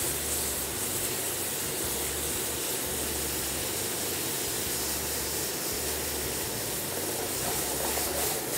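Pork ribs in guava jelly and a splash of water sizzling in a hot frying pan over a gas flame: a steady hiss as the glaze caramelizes.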